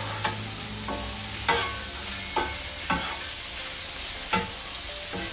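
Metal spatula scraping and clanking on a Blackstone steel griddle top as pulled chicken is turned and chopped, about one sharp clank a second. Under it runs the steady sizzle of the chicken frying on the hot plate.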